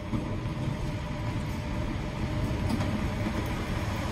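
British Rail Class 86 electric locomotive 86259 approaching slowly at the head of a train of coaches, its running rumble growing steadily louder as it nears.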